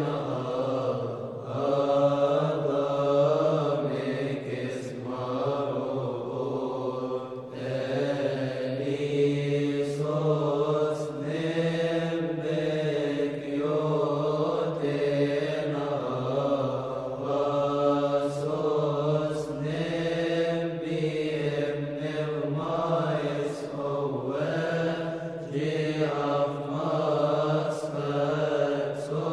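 Slow chant: a voice holding long notes that bend slowly, over a steady low drone.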